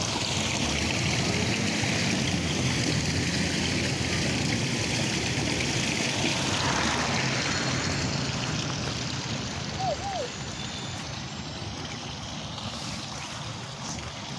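Water running along a street gutter and pooling at the curb: a steady rushing that eases off about two-thirds of the way through. Two short chirps are heard about ten seconds in.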